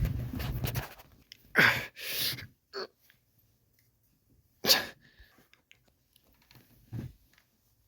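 A few short, sharp, breathy bursts of a person's voice, the loudest about four and a half seconds in, with quiet gaps between.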